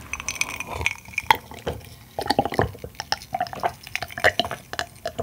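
A person drinking pink lemonade from a glass mug in a run of gulps and swallows, with liquid sounds, close to the microphone.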